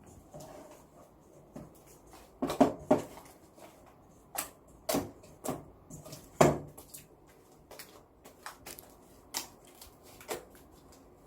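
Freshly made fluffy slime being squeezed and stretched by hand, giving irregular sticky pops and clicks as air pockets burst, a few louder ones at about two and a half seconds and six and a half seconds in.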